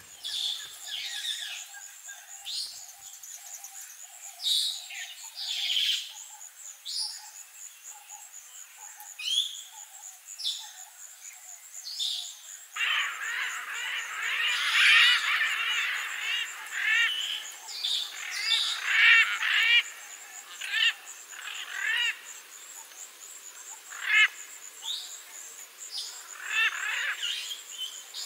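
Parrots calling: separate sharp calls at first, then about halfway through a denser stretch of rapid, repeated calls cuts in. A steady, finely pulsing high drone runs behind them.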